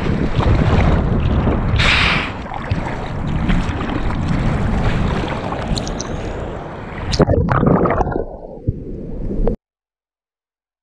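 River-break surf water rushing and splashing over a water-level GoPro, with wind buffeting the microphone and a bright splash about two seconds in. A few sharp knocks come near the end, then the sound cuts out to dead silence: an audio dropout.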